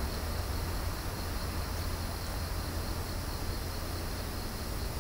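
Steady low rumble of water running through the dam, with insects chirping in an even, repeating pulse over it.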